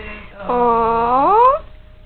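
A cat meowing: one long meow, level at first and then rising sharply in pitch at the end.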